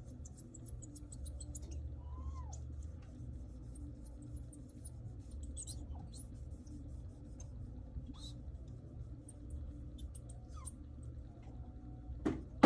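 Cloth being rubbed in quick strokes over an iPad Pro's glass screen, squeaking in many short high chirps, over a steady low hum. A sharp knock sounds near the end.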